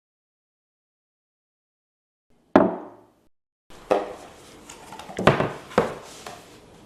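Silence, then a single sharp knock on a hard surface about two and a half seconds in. About a second later come several more knocks and light clatter over faint handling noise.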